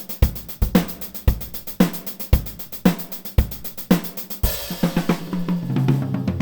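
Sampled acoustic drum kit playing a groove: kick and snare alternate about twice a second under fast steady hi-hats. A cymbal washes in about four seconds in, followed by a quick fill of rapid hits near the end.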